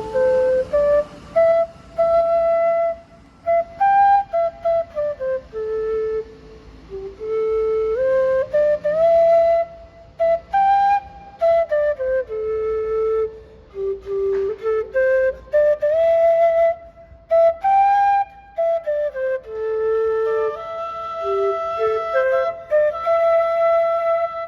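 A flute playing a simple melody one note at a time, the same rising-and-falling phrase repeating about every eight seconds.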